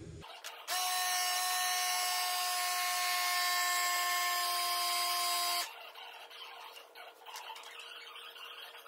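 A motor-driven machine runs steadily for about five seconds, a hiss with a held hum, switching on and off abruptly.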